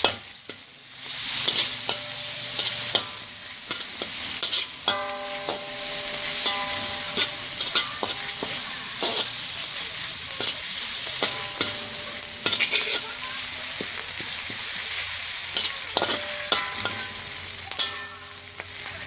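Prawns and Brazilian spinach sizzling in hot oil in a pan while a spatula stirs them, with repeated scraping and knocking of the spatula against the pan. The sizzle dips briefly at the start, then runs on steadily.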